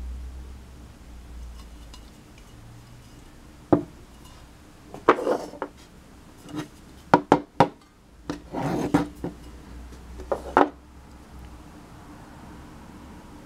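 Knocks, clicks and scrapes of a metal butane refill can and a brass lighter insert being handled on a tabletop: a single sharp knock, then several quick clicks and two short scraping passages, all in the middle stretch.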